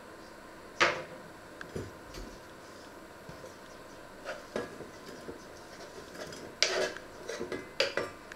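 Kitchen knife and a small wooden cutting board knocking: a sharp knock about a second in and a few lighter taps, then near the end a run of clatter and a short scrape as chopped onion is pushed off the board with the knife into a stainless steel saucepan.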